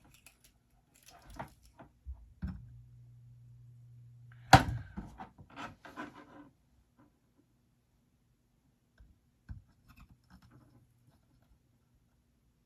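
Small clicks, taps and rubbing from handling wires and tools during soldering, with a low hum for about two seconds and one sharp knock about four and a half seconds in.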